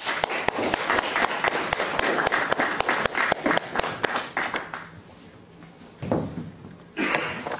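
Audience applauding, a dense patter of many hands clapping that dies away after about five seconds; a few words are spoken near the end.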